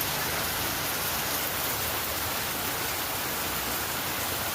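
Steady heavy rain falling, an even hiss of drops.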